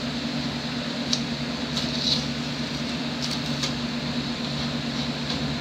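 A steady low machine hum throughout, with a few faint, scattered crackles and ticks as masking tape is peeled away from a freshly seam-sealed panel.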